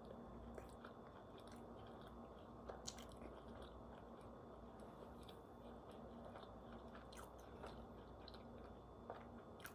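Faint chewing and biting on cooked chicken, with a few small sharp clicks over a low steady hum.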